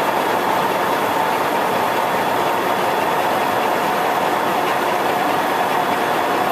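Victor 26-inch gap bed lathe running under power, spindle turning with the carriage travelling on power feed: a steady gear-driven whir with a faint high tone.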